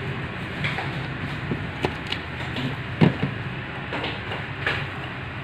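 Handling noise from a DSLR camera body and its neck strap being picked up and fitted: a few scattered clicks and small knocks, the loudest a dull knock about three seconds in, over a steady low background rumble.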